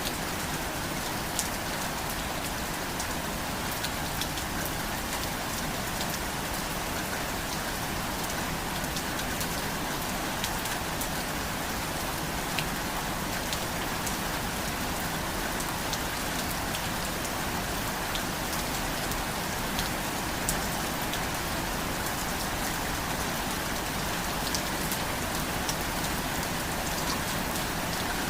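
Steady rain falling, a constant hiss with individual drops ticking sharply here and there.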